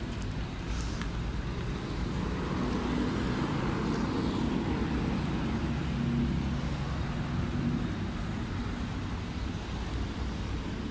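A motor vehicle's engine humming as it passes close by, swelling from about two seconds in and fading after about eight seconds, over a steady rumble of street traffic.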